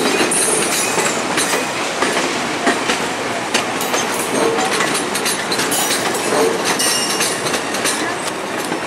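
Budd-built stainless-steel passenger cars of VIA Rail's The Canadian rolling past over rail joints and switches, the wheels clicking and knocking in an uneven clickety-clack over a steady rumble of running gear.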